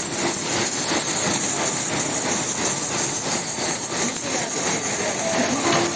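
Automatic packaging machinery running: a steady mechanical din with a fast, dense clatter.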